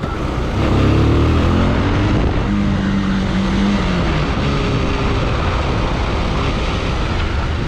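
Bajaj Pulsar 220F's single-cylinder engine pulling under acceleration, its pitch rising in the first two seconds and then holding steady, over riding wind noise. At this speed the fairing and visor vibrate, the noise the rider is trying to fix.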